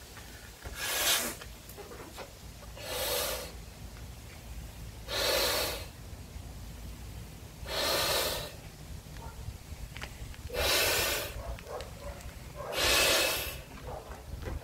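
A man inflating a 35-inch latex balloon by mouth: six loud, breathy rushes of air, one about every two seconds, as he breathes hard between blows.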